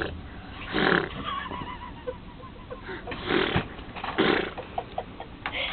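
A person imitating loud snoring: exaggerated harsh snore noises in pairs, one pair near the start and another about three seconds in.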